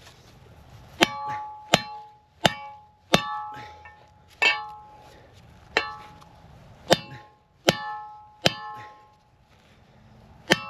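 A hammer striking metal about ten times at an uneven pace, each blow ringing briefly, as a part is knocked off a front wheel bearing hub and knuckle assembly.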